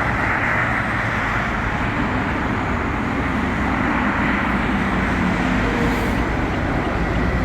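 Steady vehicle noise: an even rushing hiss with a low engine hum underneath.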